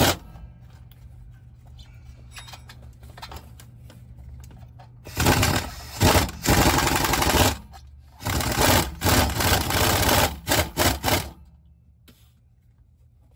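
Impact wrench on a long extension hammering at a stubborn 14 mm starter bolt on a Toyota Tacoma in several bursts, about five and eight seconds in; it can't break the bolt loose because the wrench sits at too steep an angle.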